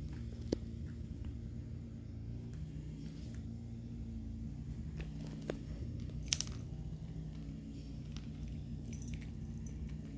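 Cat eating dry kibble from a plastic jar: quiet crunching with a few sharp clinks, the loudest about six seconds in, over a steady low hum.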